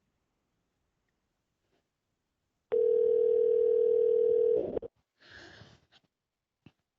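Telephone ringback tone: one steady ring of about two seconds, starting a little under three seconds in, after a silent gap. It is the sign that the transferred call is ringing at the other end and has not yet been answered.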